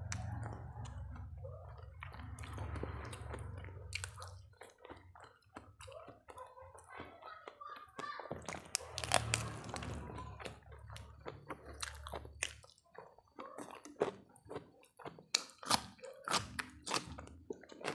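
Close-up chewing and crunching of crisp food, with many short sharp crunches that come thicker toward the end. A low hum underneath cuts off about two-thirds of the way through.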